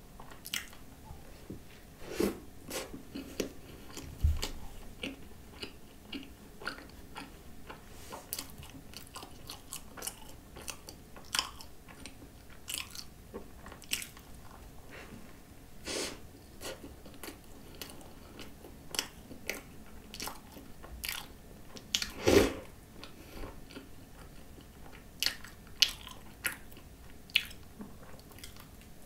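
Eating: bites into a whipped-cream-topped croissant and chewing, with many short irregular mouth clicks and smacks, the loudest about 22 seconds in. A dull bump about four seconds in.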